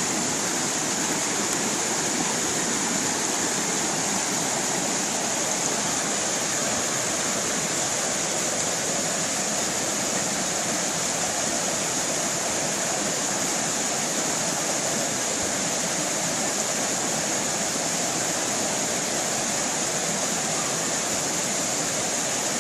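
Small stream of water rushing and splashing steadily, with a bright hiss from falling water.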